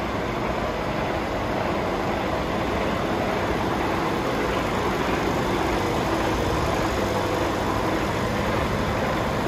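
Mercedes Actros 1840's 400 bhp turbo diesel engine idling steadily.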